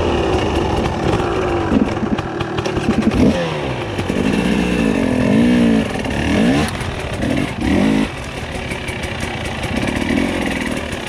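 Dirt bike engine revving up and dropping back again and again as it is ridden, with some clatter from the bike over rough ground.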